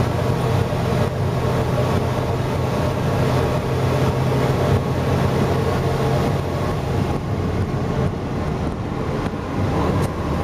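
Road and engine noise inside a moving car's cabin: a steady low drone over a wide rush, easing a little about seven seconds in.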